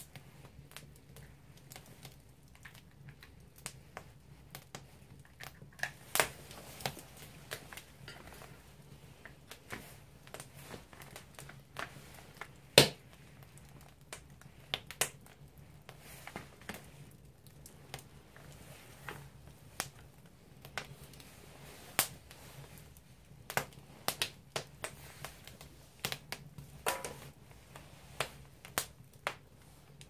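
Firewood burning in an agungi, a traditional Korean firebox, crackling with irregular sharp pops, the loudest about 13 seconds in, over a faint low steady hum.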